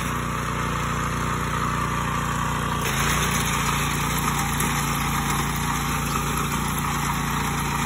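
Small engine of a gearbox-driven, walk-behind self-propelled reaper running steadily while the machine cuts standing rice.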